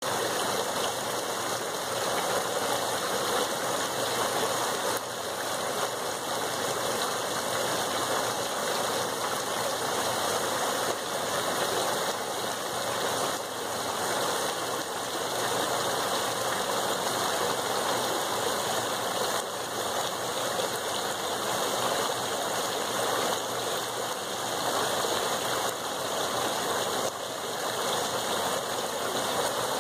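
Three-tiered cast stone fountain running: water pouring in many thin streams from tier to tier and splashing into the pool below, a steady, even splashing.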